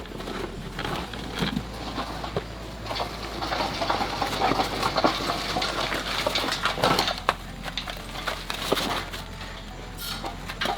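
Irregular clicking and clattering of small hard objects handled by hand, busiest in the middle, over a low steady hum.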